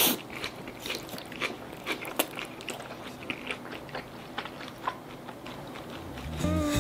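A person chewing a mouthful of homemade pizza close to the microphone, with irregular small crunches and clicks.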